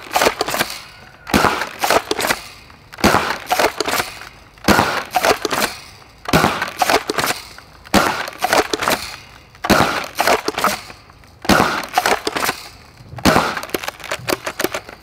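ZWQ S100 Nerf sniper blaster firing foam darts through a chronograph with no rifling on the barrel. There are about nine shots, each a sharp crack with a short tail, one every second and a half to two seconds.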